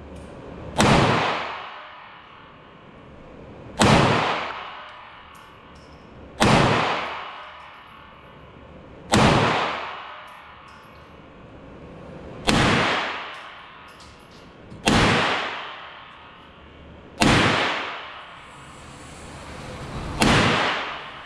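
Eight single 9mm shots from a Glock 19 pistol in a CSG Micro chassis, fired slowly, one about every two and a half to three seconds. Each shot rings out with an echo that dies away over about a second in an indoor range booth.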